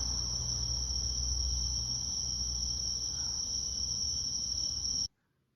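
Steady high-pitched insect chorus over a low rumble, cutting off suddenly near the end.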